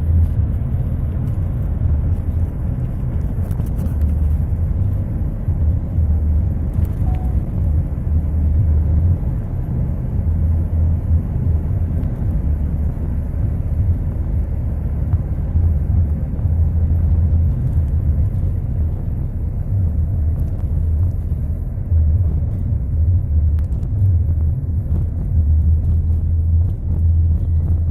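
Steady low rumble of a car on the move, with road and engine noise and no distinct events.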